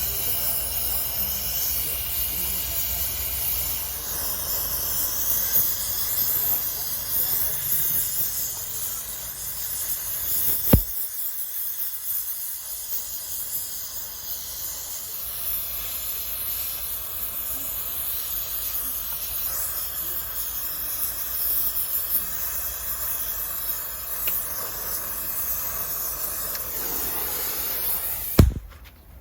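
Gas welding torch hissing steadily, with a sharp click about a third of the way in. Another click comes near the end, and the hiss cuts off just after it.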